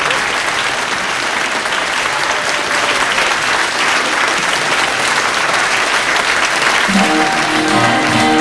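Studio audience applauding. About seven seconds in, an acoustic guitar starts playing the song's intro as the applause continues.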